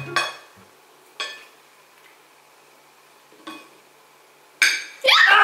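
A metal spoon clinks lightly against a ceramic plate three times, then a sudden loud cry breaks in near the end.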